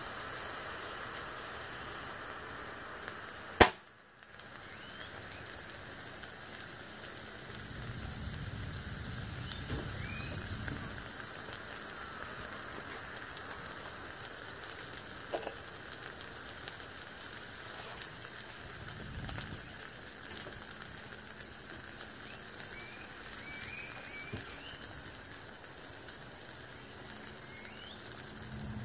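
Lithium battery of a crashed DJI Mavic Pro drone in thermal runaway, hissing and sizzling steadily as it vents smoke and burns. One sharp pop about three and a half seconds in, a small explosion as the battery melts down.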